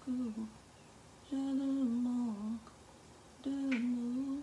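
A woman humming a tune in short phrases of about a second each, with pauses between them.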